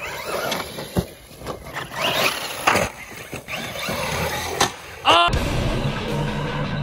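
Large electric RC monster truck driving over dirt jumps: the motor whines up and down with the throttle, with sharp thuds of landings about one, three and four and a half seconds in. About five seconds in, the sound cuts abruptly to rock music with a heavy beat.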